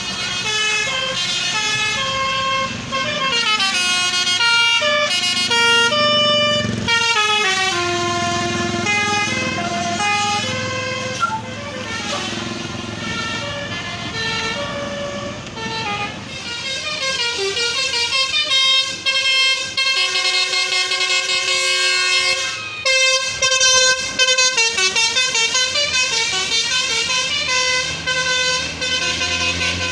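Tour bus's basuri 'telolet' musical air horn playing tune after tune, its notes stepping up and down in quick runs, then holding chords and pulsing rapidly in the last few seconds, over the sound of the bus engine.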